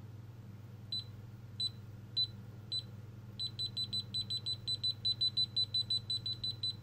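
GVDA GD128 multimeter beeping in non-contact voltage mode as it picks up a UPS's live field. A few spaced high beeps come first, then from about halfway a quick run of about six beeps a second as the meter shows its higher "H" detection level. A steady low hum runs underneath.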